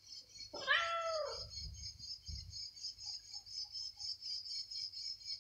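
A cat meows once, loudly, about half a second in; the call rises and then falls in pitch. Behind it, insects chirr in a steady pulsing chorus.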